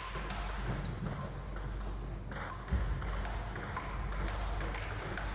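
Table tennis rally: a ping-pong ball clicking repeatedly off paddles and the table, over steady background noise.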